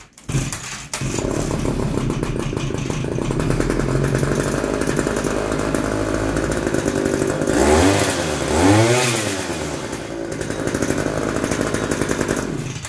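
A 2003 BladeZ Moby XL scooter's 40cc two-stroke engine, started with the choke on, catches about a second in and runs steadily. It is revved up and back down twice about eight seconds in, then cut off suddenly at the end.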